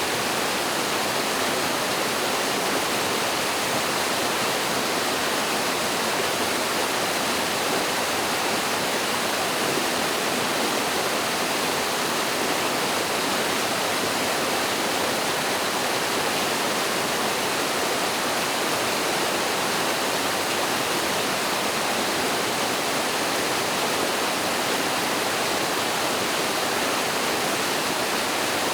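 Mountain stream pouring over a small waterfall, a steady, even rush of water with no break or change.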